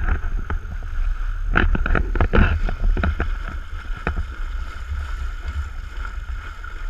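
Water rushing along the hull of a sailing catamaran under way, with a steady low rumble of wind on the microphone. A run of sharp knocks and clicks comes in the first four seconds.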